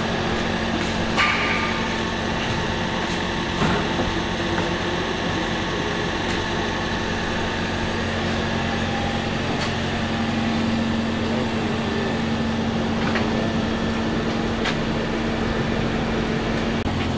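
Toyota Aqua hybrid running after its hybrid battery replacement: a steady mechanical hum, with a light click about a second in and another near four seconds.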